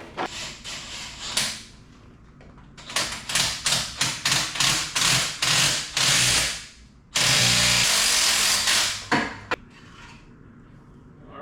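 A power tool driving the forcing screw of a pulley puller to draw the big front pulley off the engine. It runs in short repeated bursts, about two to three a second, then in one longer continuous run of about two seconds, and ends with a final short burst.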